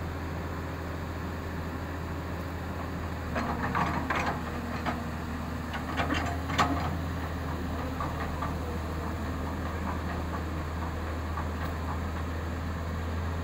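Tata Hitachi excavator's diesel engine running at a steady idle. A few metallic clanks and rattles come in two short clusters, about a third of the way through and again near the middle.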